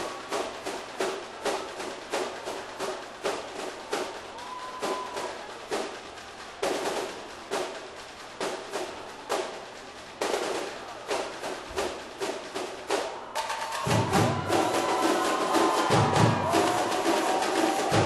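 Samba bateria drumming: a fast, even run of sharp drum and wood-like strokes without the bass, then about three-quarters of the way through the deep surdo bass drums come in and the whole battery plays louder.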